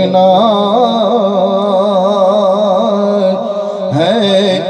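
A man singing a naat, an Islamic devotional poem, solo into a microphone over a PA system, in long, wavering, ornamented held notes. A steady high whine runs beneath the voice.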